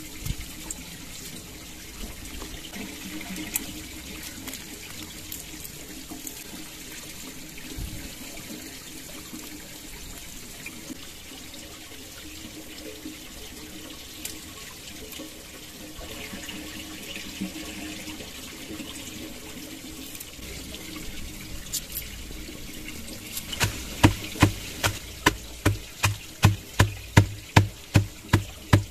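Steady rush of flowing stream water with scattered light knife clicks on a wooden cutting board. Over the last five seconds a hatchet chops on the board, about two loud blows a second.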